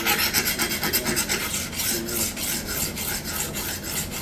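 A hard Japanese-steel knife edge ground rapidly back and forth on a diamond sharpening plate, a harsh rasping at about five strokes a second. The edge is being ground down on the diamonds to remove deep chips.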